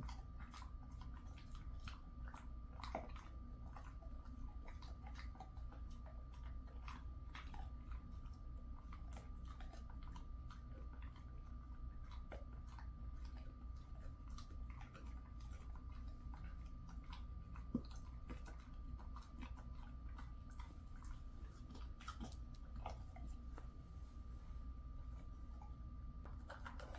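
A Jindo dog chewing a treat: faint, irregular crunching clicks spread through the whole stretch.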